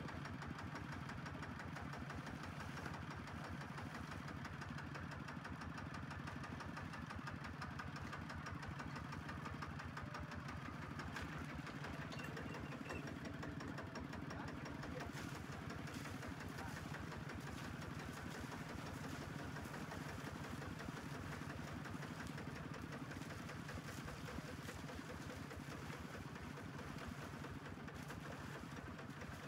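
HINOTA two-wheel walking tractor's single-cylinder diesel engine running steadily with a fast, even knocking beat.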